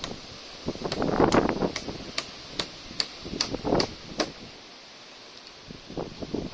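Hammer driving a nail into a wooden roof batten: a run of about eight sharp, even strikes, two or three a second, that stops a little past the middle, with wind noise on the microphone.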